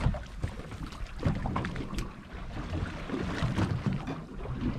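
Wind rumbling on the microphone over water sloshing against a boat hull, with a few light clicks and knocks from tackle being handled.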